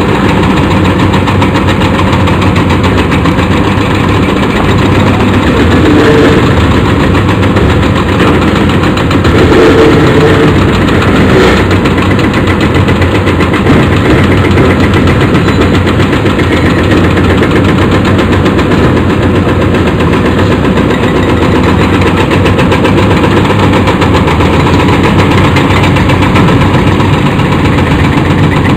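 Several Caterpillar 336D hydraulic excavators' diesel engines running under load as their demolition crushers break up a concrete overpass. The result is a loud, steady mechanical din with a continuous rattle.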